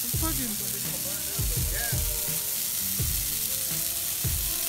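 Dried Christmas trees burning fiercely in a bonfire: a dense, steady crackle and hiss, with irregular low rumbles every second or so.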